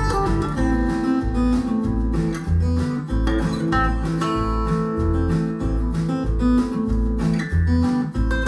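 Folk music with strummed acoustic guitar over a steady bass line, played back through a pair of B&W Vision V201 bookshelf speakers and picked up by a microphone in the room.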